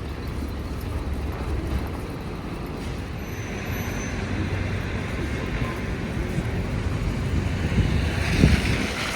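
Road traffic on a snowy city street: a steady low rumble with a tyre hiss that swells a few seconds in and again near the end, and a brief thump near the end.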